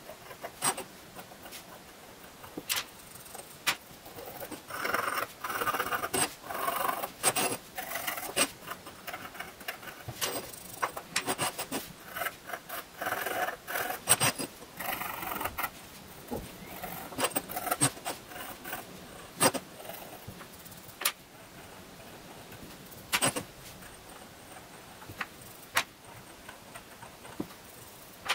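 Wooden toothpick scratching dried white glaze off a terracotta ornament in short scratchy strokes, with scattered light clicks.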